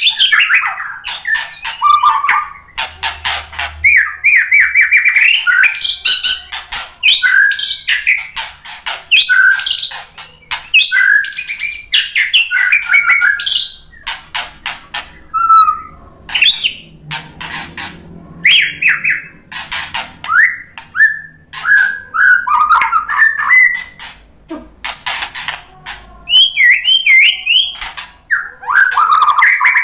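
White-rumped shama singing loudly and almost without pause: fast, varied whistled phrases mixed with harsh rattling, clicking notes, easing off briefly about halfway through before picking up again.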